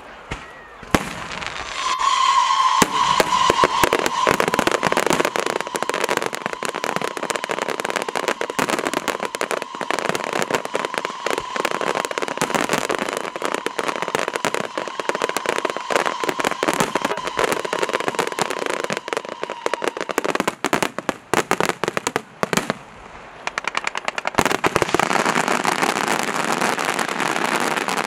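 Aerial fireworks crackling and popping in dense, rapid succession, with a steady high whistle-like tone running through much of it. The crackle thins briefly about 23 seconds in, then a fresh dense barrage of crackling starts.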